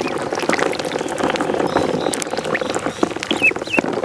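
Water splashing and dabbling in a pond, with a few short, high peeps from ducklings in the last second.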